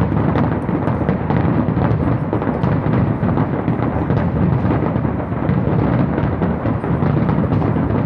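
Fireworks crackling: a dense, continuous run of many small pops, like popcorn popping, over a low rumble of booms.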